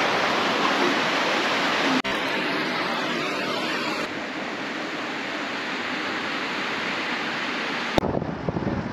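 Mountain river rushing over boulders, a steady noise of flowing water that changes sharply about two and four seconds in where shots are cut. Near the end it gives way to wind gusting on the microphone.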